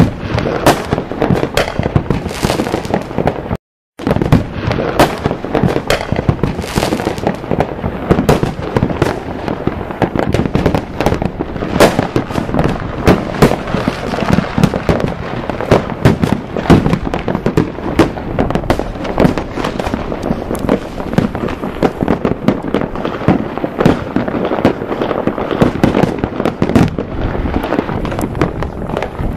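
Fireworks going off in a dense, continuous barrage of rapid bangs and crackles that overlap without pause. The audio cuts out for a moment about four seconds in.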